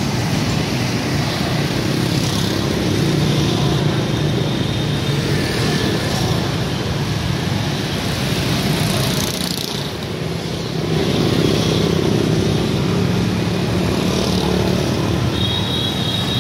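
Motorcycle engines running amid street traffic: a steady low rumble that swells and eases a little, with a brief dip about ten seconds in.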